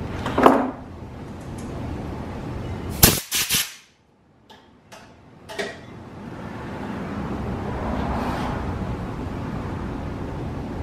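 A few sharp knocks about three seconds in, over a steady background hiss that cuts out for a moment right after them and then slowly comes back.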